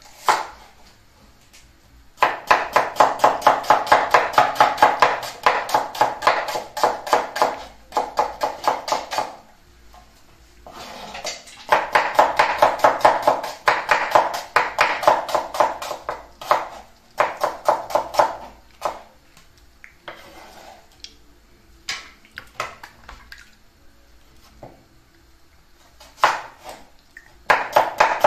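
Cleaver chopping red onion on a wooden chopping board: rapid runs of knocks, several a second, with short pauses between runs.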